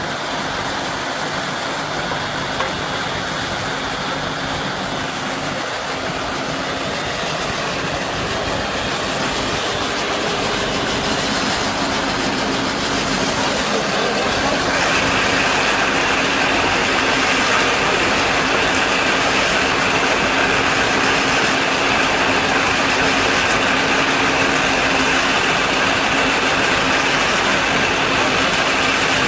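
Stationary baler-wrapper running with a steady mechanical noise. It grows louder about halfway through, as a higher steady whine joins in.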